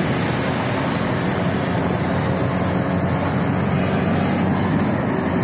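Steady road and engine noise of a car driving along at speed.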